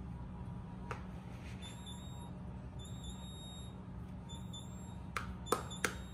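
A plastic scoop tapping and knocking against a plastic mixing bowl: one light tap about a second in, then a quick run of sharper knocks near the end, over a steady low hum.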